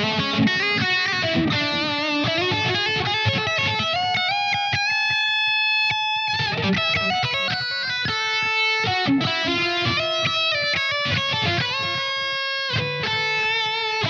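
Soloking MT-1 Custom 22 electric guitar with humbucker pickups playing a lead solo through an amp. Fast single-note runs are broken by one long held note around the middle, then the runs pick up again.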